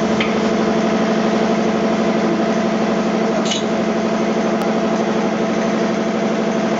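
Special-purpose welding machine running with a steady mechanical hum, one strong steady tone with several higher tones above it, and a faint click about halfway through.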